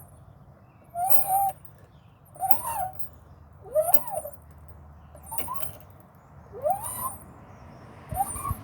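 A swing squeaking like crazy as it is swung back and forth high: six short squeaks that rise and fall in pitch, about one every second and a half, one at each end of the swing's arc.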